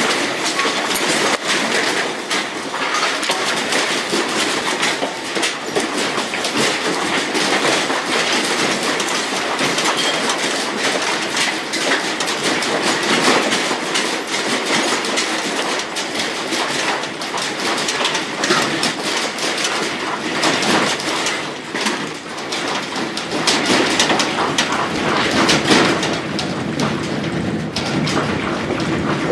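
Continuous loud rattling and clattering, dense sharp knocks over a steady noisy rumble, as a building and the things in it shake in an earthquake.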